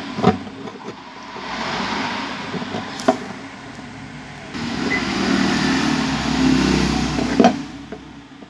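Screwdriver working the screws out of an old metal lock plate on a wooden box: scraping and grinding, with three sharp metal knocks. A louder rumbling noise fills the second half.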